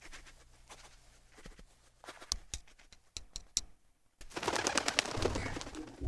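Soft footsteps and a few sharp taps, then about four seconds in a dense flurry of rapid wing flaps as a small flock of crows takes off from the ground.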